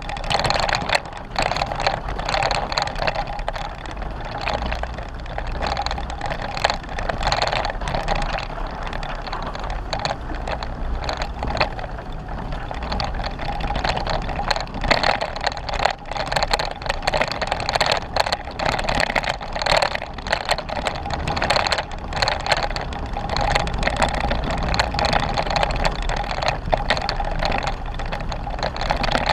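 Jeep Wrangler driving on a rough dirt trail: a steady run of engine and tyre noise with many short knocks and rattles throughout.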